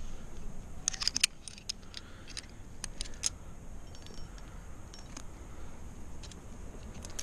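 Metal climbing gear clinking: carabiners and cams on a harness rack knocking together as the climber moves and handles a quickdraw. There is a cluster of sharp clicks about a second in and a few more around three seconds, over a low steady rumble.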